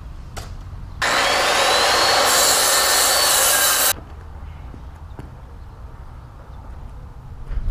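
Power saw cutting through a plywood sheet: a loud, steady cut of about three seconds that starts and stops abruptly.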